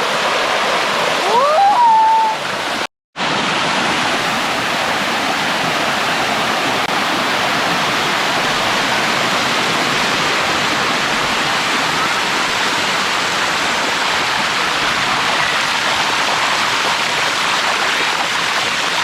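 Waterfall: water rushing and splashing over rock in a steady, loud rush. The sound breaks off completely for a moment about three seconds in, then carries on unchanged.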